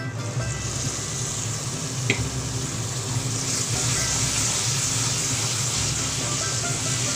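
Onion, ginger and garlic paste sizzling as it hits hot oil in a frying pan and is stirred in with a spatula; the sizzle grows stronger after about three seconds. A single sharp knock about two seconds in.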